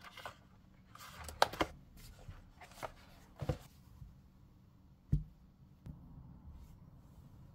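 Close-miked handling of a tablet and its cardboard packaging: faint rustling with a cluster of sharp clicks about a second and a half in, and a couple of dull knocks a few seconds later.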